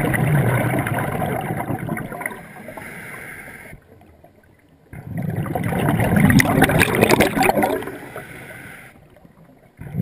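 Scuba diver breathing through a regulator underwater: loud gurgling bursts of exhaled bubbles about every five seconds, each fading into a quieter hiss before a short pause.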